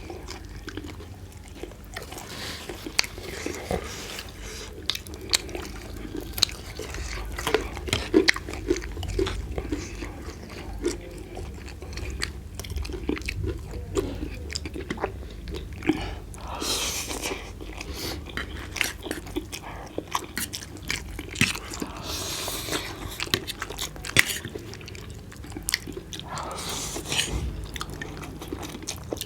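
Close-up chewing and biting of roast chicken: a steady run of wet mouth sounds and crisp, clicky bites, with a few short rustling or slurping sounds mixed in.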